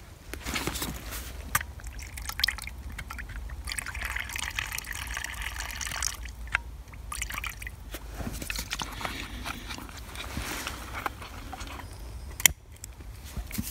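Bio-ethanol poured from a squeeze-spout fuel bottle into a Trangia spirit burner, trickling and dripping into the burner well. Small clicks and knocks of the bottle and burner being handled come through it, with one sharp click near the end.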